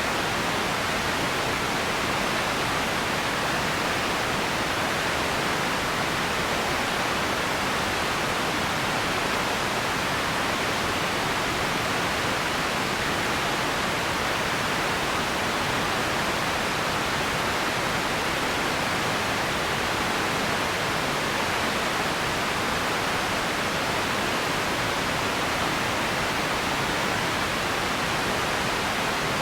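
Empty ambience noise: a steady, even rushing hiss that never changes, with no distinct events.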